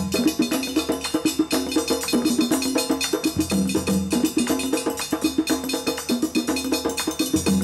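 West African-style drum ensemble playing a fast, repeating interlocking rhythm: dunun barrel drums struck with sticks, with hand drumming. A deeper low drum phrase comes back about every four seconds.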